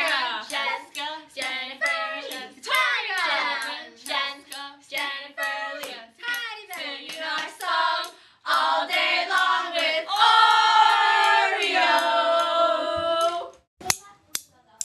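Voices singing a repetitive chanted a cappella song over sharp clicks that keep a steady beat, a few per second. About ten seconds in, several voices hold one long note together; it breaks off suddenly about a second before the end, leaving only a few clicks.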